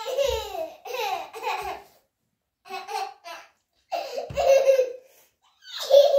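A young child laughing in short bursts, with vocal sounds that rise and fall in pitch and pause a few times.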